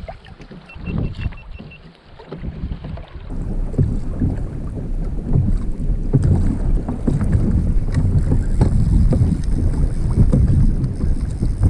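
Wind buffeting the microphone over water lapping and slapping against a kayak's hull, growing louder and rougher after about three seconds.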